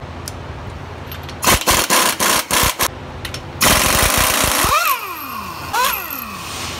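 Pneumatic impact wrench hammering bolts loose on a bus's rear hub cap: a string of short rattling bursts, then one longer run of about a second. Twice near the end it spins briefly, its whine rising then falling away as it winds down.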